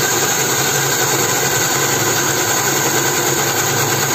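Electric blender motor running steadily at speed, grinding granulated sugar with cooking oil in a glass jug into a creamy paste.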